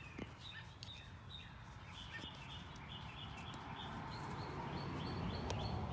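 Small birds chirping in quick repeated high notes, over a rushing noise that grows steadily louder, with a few faint clicks.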